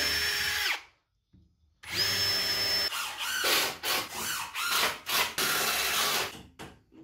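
Ryobi cordless drill driving screws into pine 2x4 strips, running in two steady whines with a short stop between them, then a series of short, uneven bursts.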